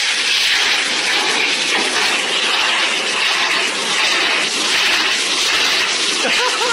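Pet grooming blow dryer blowing a steady, loud rush of air at a French bulldog's face. Near the end a brief wavering pitched sound rises over it.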